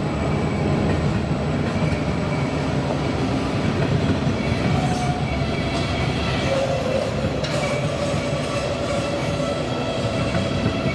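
Freight train's loaded container wagons rolling past: a steady rumble of steel wheels on rail with thin, drawn-out squealing tones from the wheels on the curve.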